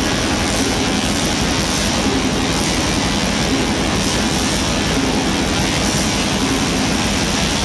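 Musical Tesla coils firing arcs: a loud, harsh electric buzz that sounds low notes, changing pitch every second or so.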